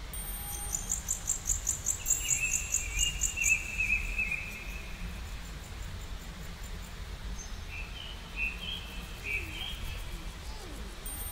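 Songbirds singing: a fast, high-pitched trill for the first few seconds, then warbling phrases, with more warbling later on.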